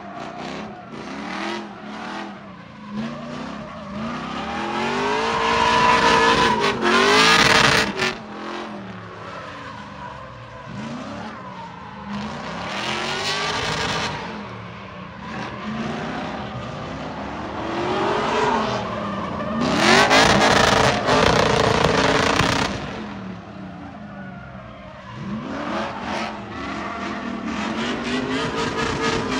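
Drift car sliding through corners, its engine revs climbing and dropping over and over as the throttle is worked, with tyres screeching. It is loudest as the car passes close, about six and twenty seconds in.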